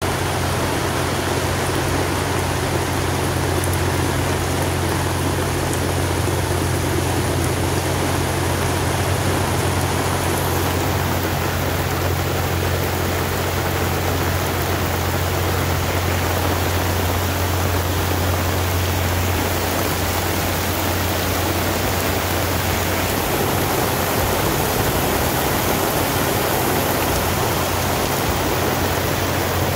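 Heavy rain pouring down on the lake and on the boat's canvas bimini top, a steady hiss, with the boat's engine droning low underneath.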